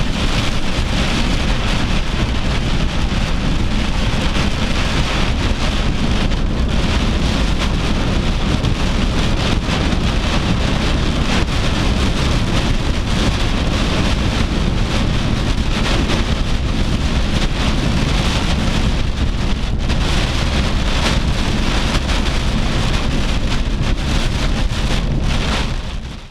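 Heavy rain from a high-precipitation supercell beating on a vehicle's windshield and roof: a steady, loud rush of noise that fades out at the very end.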